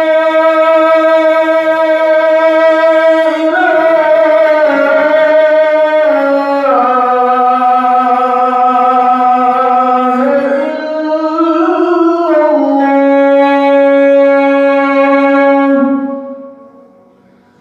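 Adhan, the Islamic call to prayer, sung by a man in one long held phrase with several ornamented turns in pitch. It ends about 16 seconds in and dies away.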